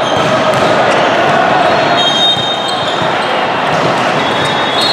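Reverberant din of a big volleyball hall, with many courts of play and voices going at once. A few sharp volleyball hits stand out during a rally, along with brief high squeaks.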